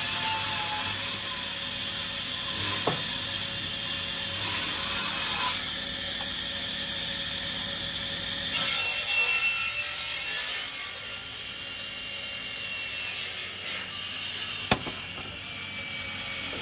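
Sliding table saw running, its circular blade cutting through a thin wood panel, with a steady high whine under the sawing noise. The cut grows louder for a couple of seconds about halfway through, and a single sharp knock comes near the end.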